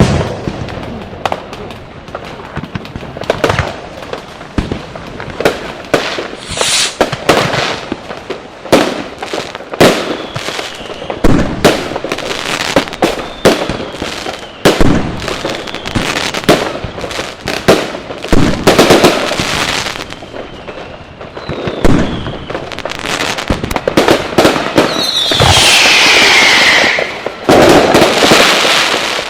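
Firecrackers and fireworks going off in a dense, irregular barrage of sharp bangs, several in quick succession. Near the end a loud whistle falls in pitch over the bangs, as from a whistle bomb.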